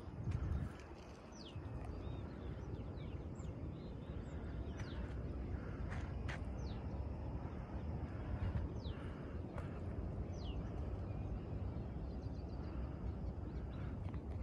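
Walking on a dry dirt hillside trail, with footsteps and wind rumbling on the microphone. Birds give short, high, falling calls now and then, about eight times.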